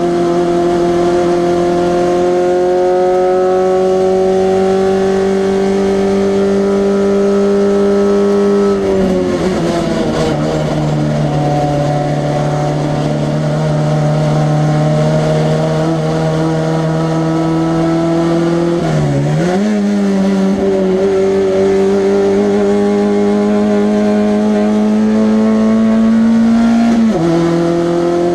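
1300 cc class race car engine running hard at high revs. Its pitch climbs slowly for several seconds at a time, and the revs drop sharply about nine seconds in, dip briefly and recover around twenty seconds, and drop again near the end, as with gear changes or lifting off.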